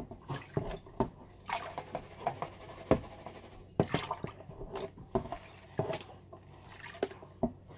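Water sloshing and splashing irregularly as a plastic gold pan of paydirt is swirled and dipped in a tub of water during gold panning.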